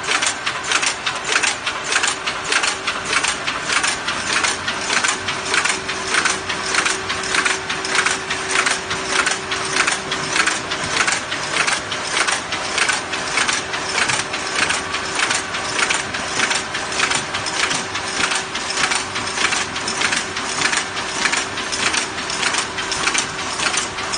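Automatic tinplate can body-making machine running at speed: a fast, even metallic clatter repeating two to three times a second as each sheet is fed, rolled and formed into a can body, over a steady machine hum. Finished can bodies drop and clink into a cardboard box at the outlet.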